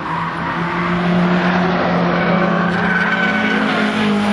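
A car driven hard on a race circuit, approaching and passing close by. The engine noise builds about a second in and stays loud, its note stepping up in pitch.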